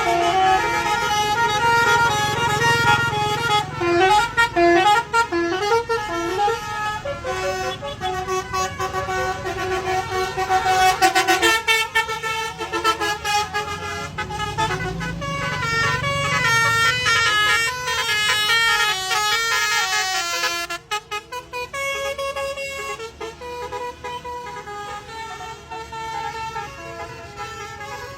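An Indonesian bus's 'telolet basuri' melodic horn playing a tune: a quick run of horn notes stepping up and down, the phrase changing about twelve seconds in and again around twenty-one seconds. The bus's engine rumbles underneath, swelling twice as it passes.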